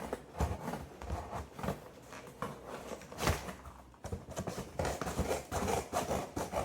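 Sides of a shipping box being cut open by hand: an irregular run of short cutting and rustling sounds with clicks, and one louder knock about three seconds in.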